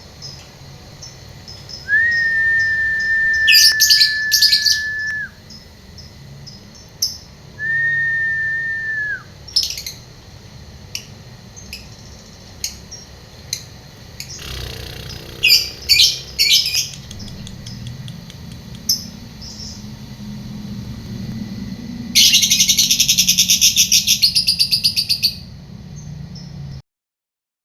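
Dun fallow lovebird chirping in short sharp clusters, then a fast chattering trill near the end. The uploader presents these calls as signs of the bird's unstable breeding mood. Early on, a long steady whistle sounds twice.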